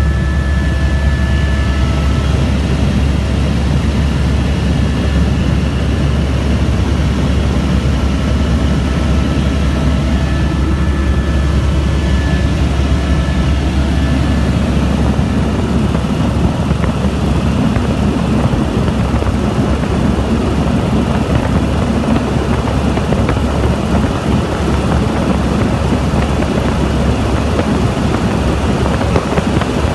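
Helicopter's turbine engine and rotor running steadily, a loud constant drone with a strong low hum. A faint high whine comes and goes in the first half.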